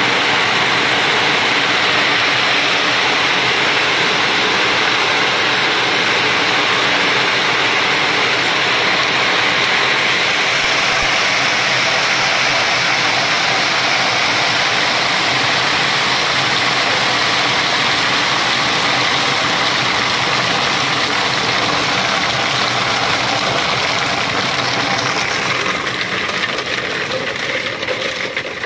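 Walnut peeling machine running, fresh walnuts tumbling and scraping in its water-fed drum: a steady, loud churning noise that eases slightly near the end.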